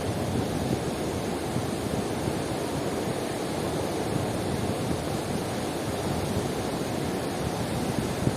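Caspian Sea waves washing onto the shore: a steady rushing surf noise, with no single breaking crash standing out.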